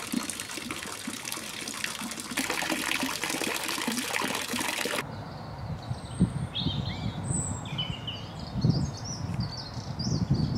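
Garden fountain's thin jet of water splashing into its pond, a steady hiss, for about five seconds until it cuts off sharply. Then small birds singing in quick chirps and slurred notes, over a low, uneven noise.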